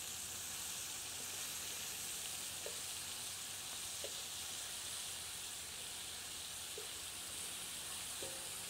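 Beef pieces sizzling steadily as they brown in butter in a hot pan, with a few light clicks of metal tongs against the pan as the pieces are turned over.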